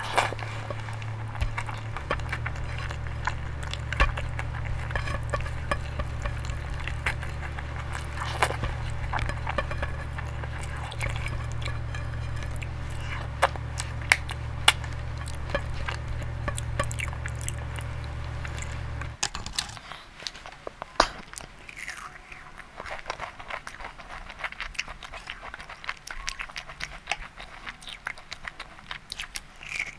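Close-miked eating sounds: wet chewing and lip smacks of dal and rice eaten by hand, with fingers drawn through the mouth. A steady low hum runs beneath and cuts off suddenly about two-thirds of the way in. After that, softer chewing and biting of imarti, a syrupy fried sweet.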